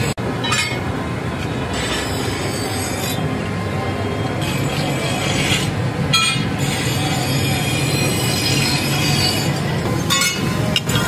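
Forge blower running steadily, a continuous rushing drone of air being fed into the coal fire, with high whining tones over it.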